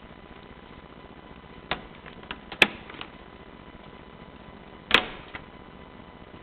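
Miele Prisma W850 washing machine making a few sharp clicks and knocks over a low steady background, the two loudest about two and a half seconds in and about five seconds in.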